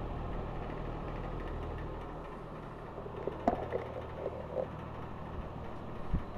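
Montgomery Ward Signature two-speed metal box fan running on low with a steady hum, which fades about two and a half seconds in. A sharp click and some light clatter follow, then a short thump near the end.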